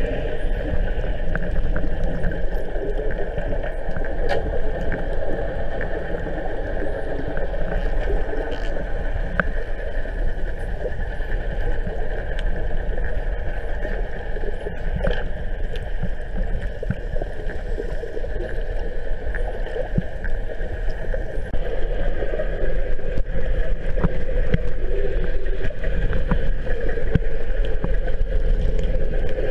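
Underwater sound picked up by a camera below the surface: a steady, hollow drone with a deep rumble and scattered faint clicks, growing louder a little over two-thirds of the way through.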